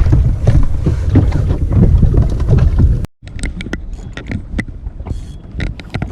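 Heavy wind rumbling on the microphone out on a boat at sea, which cuts off abruptly about three seconds in. After that it is quieter, with scattered sharp knocks and clicks.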